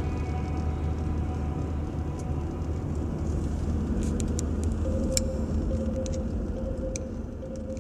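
Car driving on the highway, heard from inside the cabin: a steady engine and road rumble, with a few light clicks and a faint held tone coming in about five seconds in.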